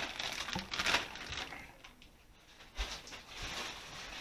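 Aluminium foil trays rustling and crinkling as they are handled, in short noisy bursts, a cluster in the first second and a half and another around three seconds in, then fading.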